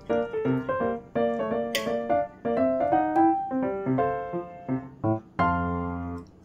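Background piano music: a gentle melody of short notes, ending on a held low chord a little after five seconds in that fades away.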